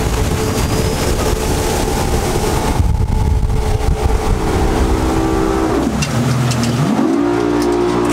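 Motorboat engine running at speed, with wind and water rush over it. About six seconds in, the engine note falls and then climbs again a second later.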